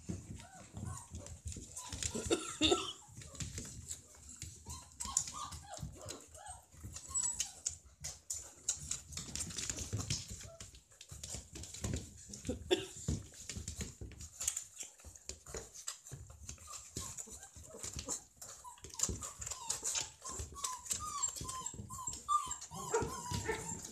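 Month-old wolfdog puppies whimpering and squeaking in many short high cries, in bunches, with the most near the end, as they crowd an adult dog to suckle. Scuffling and rustling of paws on a cloth blanket comes in between.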